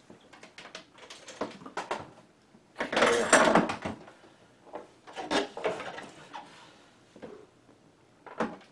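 Plastic clicks, knocks and scraping as a speaker is handled and fitted against the side of a CRT monitor's plastic case, with the loudest scrape about three seconds in and another a couple of seconds later.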